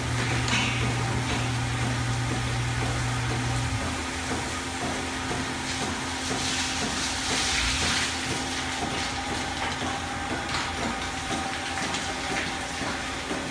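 Milking parlor machinery running steadily, a constant mechanical drone with a hiss of rushing air or liquid about six to eight seconds in. A deeper hum cuts off about four seconds in.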